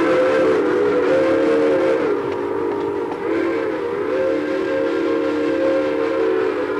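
Steam whistle of Nickel Plate Road 2-8-4 Berkshire no. 765 blowing a long chord of several tones at once, wavering a little past two seconds in, then swelling again and cutting off near the end.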